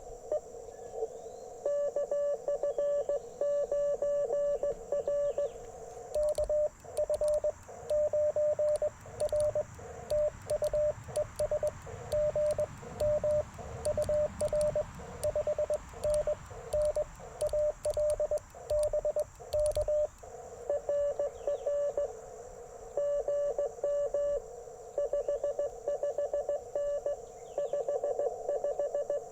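Morse code (CW) from an Icom IC-705 transceiver's speaker: on-off tones at about 600 Hz over steady receiver hiss, as stations exchange calls. Through the middle stretch the loudest keying comes with sharp clicks of the Morse paddles as the operator sends.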